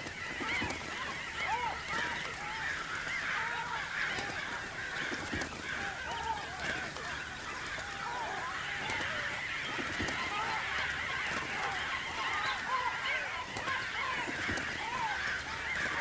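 A large flock of birds calling all at once, many short arching calls overlapping in a dense, unbroken chorus. A few faint low knocks sound in among them, about every five seconds.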